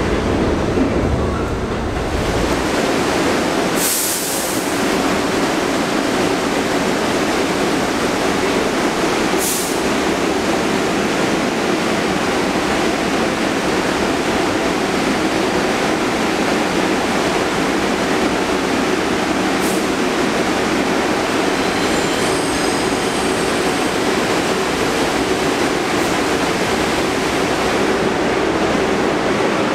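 Subway train noise: a low rumble for the first couple of seconds, then a steady hum and hiss, with a sharp click about four seconds in and another near ten seconds.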